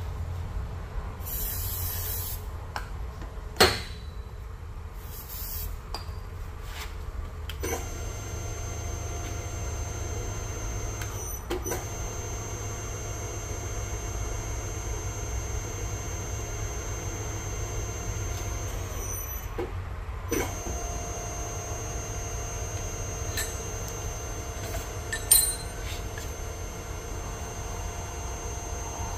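Nargesa CC90 tube bender running as it bends 1-inch square aluminium tubing: a steady machine whine starts about eight seconds in, changes pitch around twenty seconds and carries on. A sharp metallic clank about four seconds in and another near the end.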